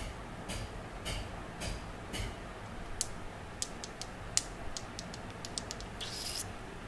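Hard-candy lollipops handled and tapped together: a few soft taps, then a quick run of sharp, light clicks, and a brief rustle near the end.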